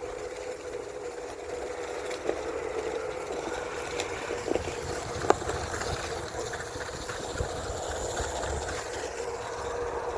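Onewheel electric board's hub motor humming steadily as it rolls over a dirt trail, with rough rolling noise and a few sharp knocks, the loudest about five seconds in.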